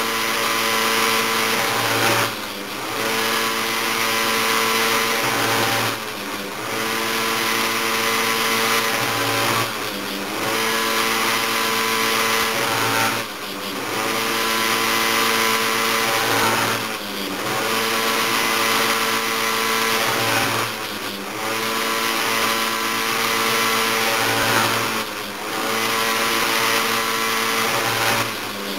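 Oregon bench-mounted mini chain grinder running with a steady motor hum and grinding hiss as it grinds a chainsaw chain's depth gauges (rakers). The motor briefly dips in pitch and level about every four seconds, roughly once per raker.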